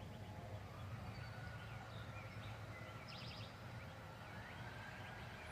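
Several songbirds chirping and calling at a distance, with a brief rapid trill about three seconds in. A faint steady high tone and a low hum run underneath.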